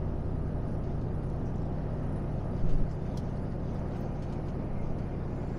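Steady low drone of a lorry's engine and tyre noise heard inside the cab while cruising at motorway speed, with one brief louder bump about two and a half seconds in.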